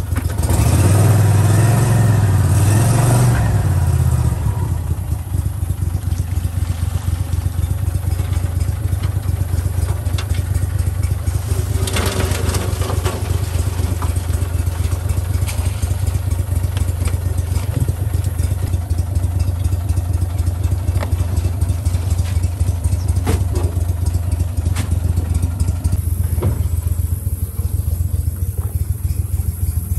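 Gator Tail surface-drive mud motor on a crawfish skiff running, louder with its pitch rising and falling for the first few seconds, then running steadily. Around twelve seconds in, a brief clatter as a trap of crawfish is shaken out onto the metal sorting tray.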